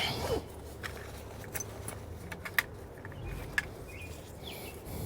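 Scattered light metallic clicks and taps of hand tools and sockets being handled, over a faint steady low hum.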